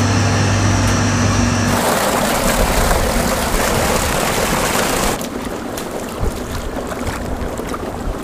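Electric tubewell pump's motor humming steadily; about two seconds in, a heavy stream of water gushing loudly from the pump's outlet pipe takes over, dropping to quieter running water a little past the middle.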